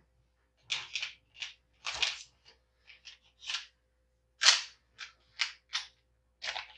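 About a dozen irregular sharp clicks and clacks of a pistol's metal and polymer parts being handled and fitted together while a magazine release is swapped, the loudest about halfway through.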